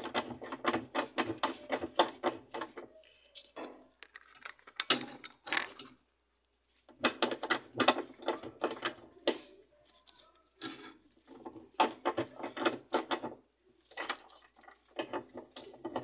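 Ratchet wrench clicking in quick runs with short pauses between, tightening the mounting bolt of a washing machine motor after the drive belt has been fitted, with one sharp knock about five seconds in.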